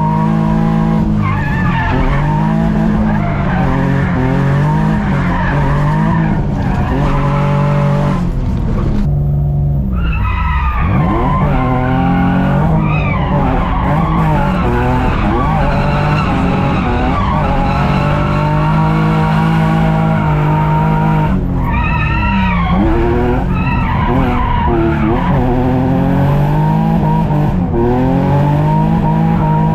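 Infiniti G35's V6 revving hard through a cheap aftermarket exhaust while the tires squeal in a drift, the engine pitch rising and falling again and again.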